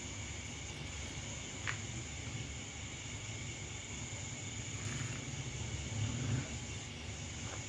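Steady, high-pitched chirring of night insects, with a low rumble underneath and a faint click or two.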